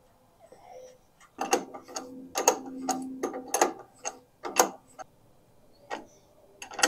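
Hand ratchet clicking in quick groups of strokes as a castle nut is snugged onto the drag link end, with a short squeak near the middle. The clicking stops about two-thirds of the way through and picks up with two more clicks near the end.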